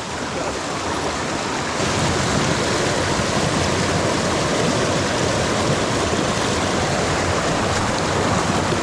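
Mountain stream water rushing over rocks: a steady, loud flow.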